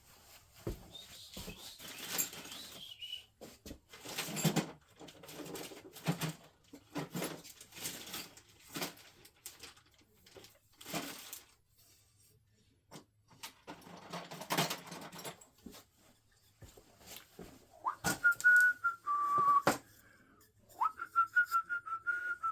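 Scattered rustling and clicking of hands handling small parts and wires, then near the end a person whistles two short phrases, each holding a note and stepping down to a lower one.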